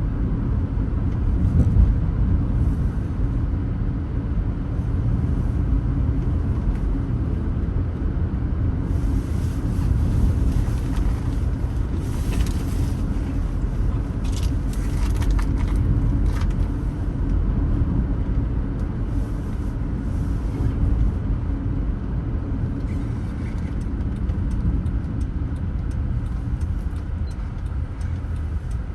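Car driving along a road: a steady low rumble of tyres and engine, with a hiss rising over it for several seconds around the middle.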